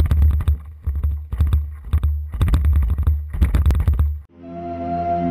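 Splashing and scraping as a wading person pulls a Wilderness Systems Tempest 170 sea kayak through shallow water over sand. The bursts come about once a second over a heavy low rumble. About four seconds in it cuts off, and ambient music with a held drone takes over.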